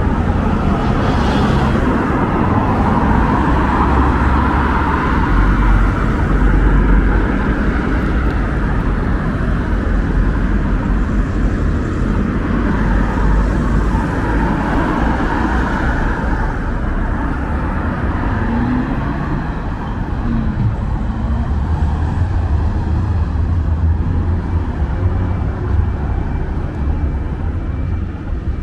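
City street traffic: cars driving past with a steady low rumble of engines and tyres, swelling a few times as vehicles go by.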